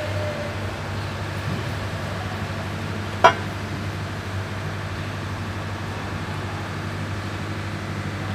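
A steady low engine hum, with one sharp click about three seconds in.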